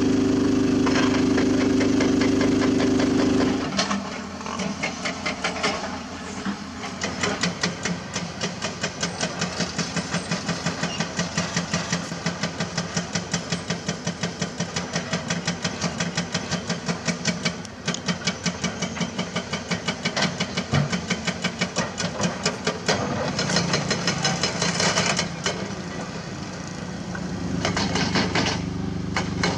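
Hydraulic rock breaker on a CAT 320D excavator hammering limestone in rapid, even blows, about eight a second, over the excavator's diesel engine. The first few seconds hold only the engine running steadily, and the hammering stops again near the end.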